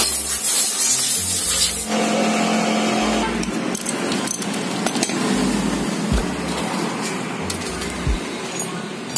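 Brush scrubbing a car AC compressor housing for about two seconds. Then workshop noise: a steady hum with scattered clicks of metal parts and tools being handled.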